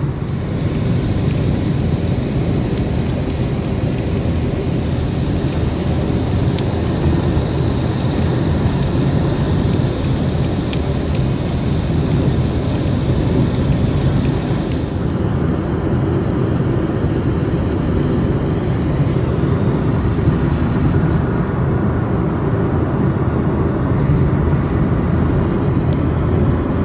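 Steady low rumble of a car driving on a wet motorway, heard inside the cabin. About halfway through, the higher tyre hiss drops away and the low rumble carries on.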